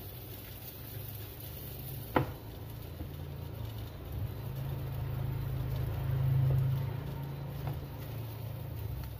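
Steady low rumble of a gas burner under a griddle of toasting bread, swelling a little past the middle, with one sharp click about two seconds in.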